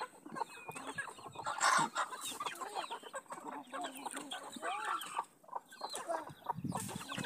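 A flock of young free-range chickens clucking and calling, many short calls overlapping, with one louder call about a second and a half in.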